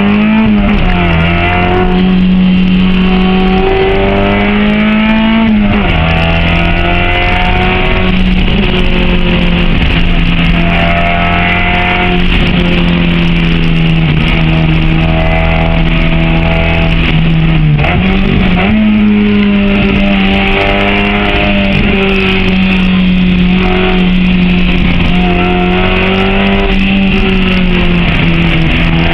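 Honda H22A four-cylinder engine in a Civic running hard under load, its pitch holding high with brief drops and rises a few times as it shifts and comes back on the throttle.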